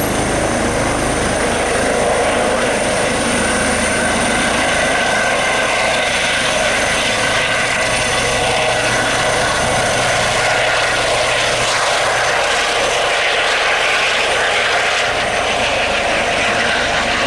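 Eurocopter EC135 twin-turbine helicopter running: a loud, steady high turbine whine over the rush of the rotors.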